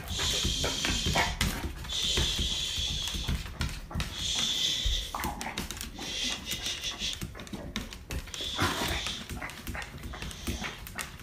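Dog in a convulsive seizure: noisy, hissing breaths that repeat about every one to two seconds, each lasting about a second, with short knocks and scrapes from the dog's body and paws on the tile floor.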